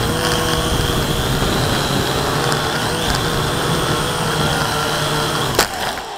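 Syma X8C quadcopter's four brushed motors and propellers whining steadily in flight, heard from the onboard camera. About five and a half seconds in a sharp knock marks the touchdown in the grass, and the motors start to wind down near the end.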